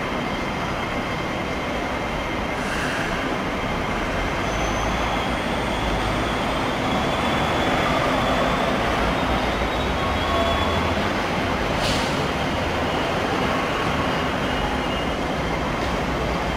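Hong Kong Light Rail Phase IV light rail car pulling into the platform, its steady running noise swelling slightly as it draws alongside. A few short, faint high squeals come from the wheels on the track, and there is one sharp click about twelve seconds in.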